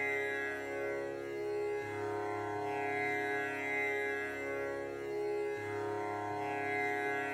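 Slow meditative background music: a sustained drone of many held tones, its low note changing about every four seconds.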